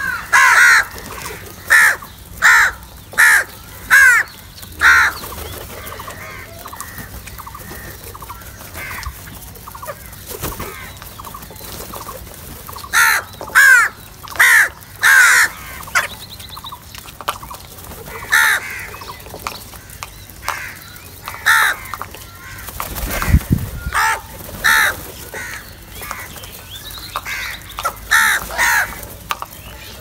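House crows cawing: runs of short, harsh caws in quick succession, in bursts with quieter spells between. A brief low rumble comes about two-thirds of the way through.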